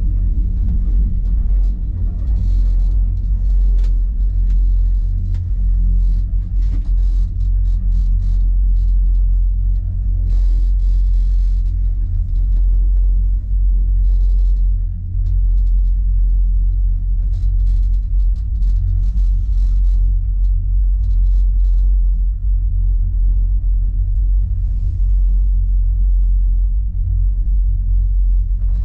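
Steady low rumble heard from inside a one-person standing gondola of the Langkofelscharte cable car as it rides down the cable, with faint scattered crackles.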